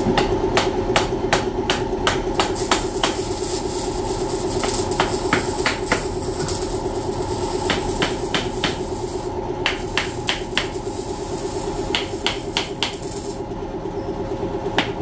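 Welding on steel exhaust parts: a crackling, hissing arc with irregular sharp snaps over a steady hum. The hiss breaks off briefly about nine and a half seconds in and stops about thirteen and a half seconds in.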